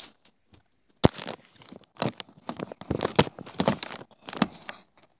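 Irregular crinkling and rustling, a quick run of sharp crackles that starts about a second in and stops near the end.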